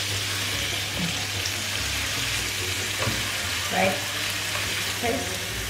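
Beef steaks sizzling steadily as they sear in a hot frying pan.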